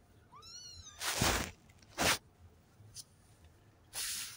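A three-week-old Maine Coon cross kitten gives one high mew, rising then falling, about half a second in. After it come three short bursts of rustling noise, louder than the mew.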